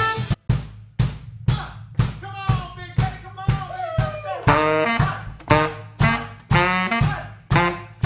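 Saxophone playing with a small band, a drum kit keeping a steady beat of about two hits a second. The sax bends a note downward near the middle, then plays a short repeated riff.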